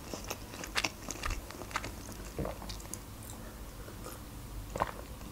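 Soft, close-miked chewing of a breaded fried chicken chop, with scattered crunchy clicks and wet mouth sounds, thinning out after the first couple of seconds. A gulp near the end as juice is drunk from a glass.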